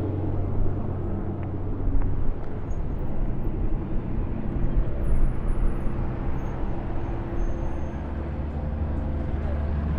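A car engine running at low revs with a steady, deep note and a rumble under it.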